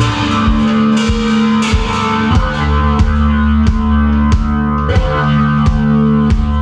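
Live rock band playing an instrumental passage: sustained low guitar and bass notes under a dense guitar wash, with drum-kit hits on a steady beat, about three every two seconds.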